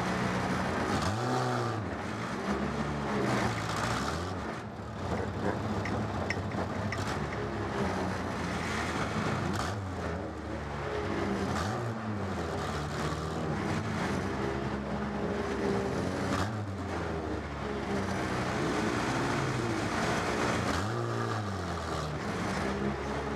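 Stock car engine heard from inside the cockpit, running steadily with the revs dropping and climbing again several times.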